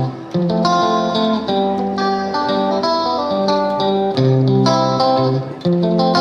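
Background music led by a plucked guitar, a steady run of picked notes with a bass line.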